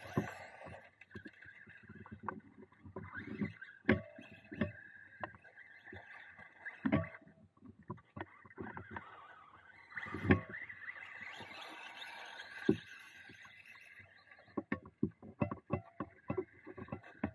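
Traxxas Rustler 2WD RC truck's electric motor running with a steady whine as its tyres scrabble over loose dirt. Sharp knocks and thumps come through as the truck bounces and lands, with the biggest about four, seven, ten and thirteen seconds in, then a quick run of clattering near the end.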